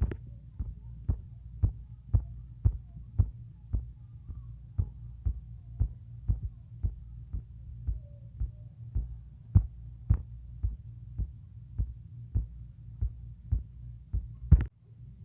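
A steady series of soft low thumps, about two a second, over a low steady hum, with one louder thump near the end.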